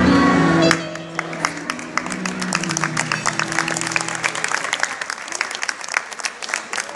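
A choir and its accompaniment end their song less than a second in, the last chord dying away over the next few seconds, while the audience applauds.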